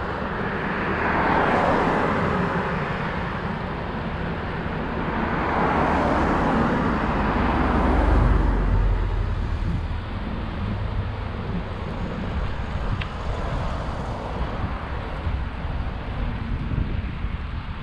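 Road traffic noise, with two vehicles swelling past in turn, one in the first two seconds and another about six seconds in, and wind rumbling on the microphone at about eight seconds. Steadier, slightly quieter traffic noise follows.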